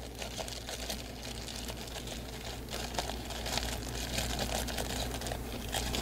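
Faint crinkling of a plastic parts bag and rustle of gloved hands handling a small part, with scattered light clicks over a steady low hum.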